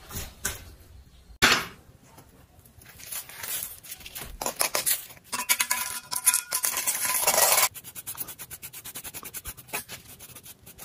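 A sand-cast metal hand fan being pried out of its sand mould with a metal tool: a sharp knock about a second in, then metal scraping and grating against sand and the casting, with a faint metallic ring. Near the end, a stiff paintbrush scrubbing sand off the casting in a fast run of short strokes.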